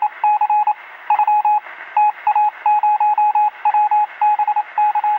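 A series of electronic beeps, all at one pitch, some short and some longer, sounding thin as if over a phone line, with a faint hiss between them.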